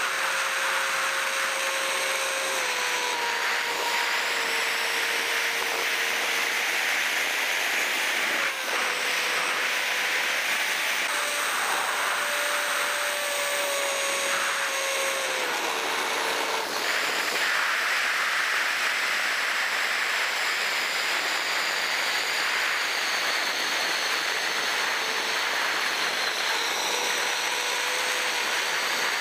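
Electric ducted fan of a Freewing L-39 model jet whining in flight over a steady rush of air. The whine's pitch dips a little about three seconds in, sags again around fifteen to sixteen seconds, and climbs back a moment later as the throttle changes.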